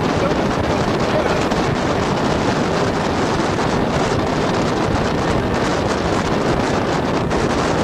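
Wind buffeting the microphone aboard a speedboat running fast, mixed with the steady noise of the boat and water rushing past.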